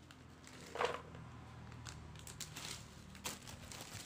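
Plastic snack packet crinkling and rustling as it is handled, with a sharp crackle about a second in and a few smaller rustles after it.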